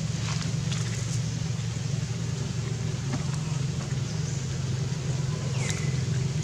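Steady low engine hum, with faint scattered clicks and a short high chirp that falls in pitch near the end.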